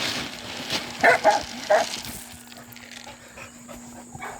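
A dog giving three short, high calls in quick succession, about a second in.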